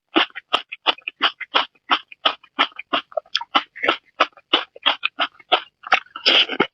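Someone chewing soft, fatty braised pork with wet mouth smacks, a quick run of about four or five a second, with a few longer, squelchier bites near the end.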